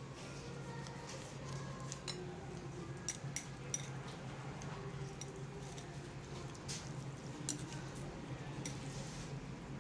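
Chopsticks mixing sauce-coated instant noodles in a bowl: scattered light clicks of chopsticks against the bowl among wet squishing of the noodles, over a steady low hum.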